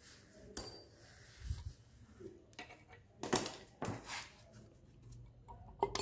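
Metal parts of a Yuken A70 variable piston pump clinking and knocking as its saddle bearing is worked loose by hand inside the housing. There are a handful of sharp clinks, the first with a short metallic ring.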